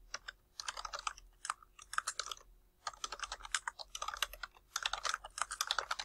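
Fast typing on a computer keyboard: quick runs of keystrokes broken by short pauses.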